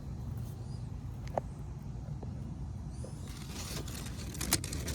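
Hands digging gently through the soil of a tortoise nest to uncover eggs: soft scraping and rustling, strongest in the last second and a half, with two small sharp clicks, over a low steady background rumble.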